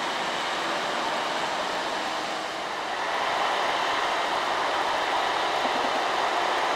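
Loaded Mitsubishi Canter dump truck's diesel engine pulling uphill as the truck passes, a steady rumbling run with tyre noise that grows a little louder about three seconds in.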